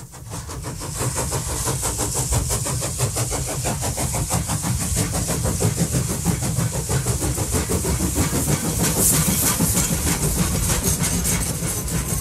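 Train sound effect: a train chugging in a fast, even rhythm with a steady hiss, fading in over the first second or two.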